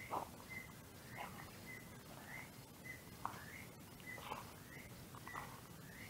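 Footsteps scuffing on a leaf-strewn dirt path, about one a second. Behind them a high two-part call, a short held note then a rising one, repeats about every half-second.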